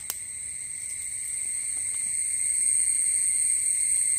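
Insects calling outdoors: a steady high-pitched drone that grows slowly louder.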